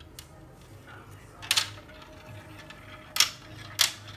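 Marbles clattering down a plastic marble run, rattling through its tubes and chutes: three sharp clatters, about a second and a half in and twice near the end.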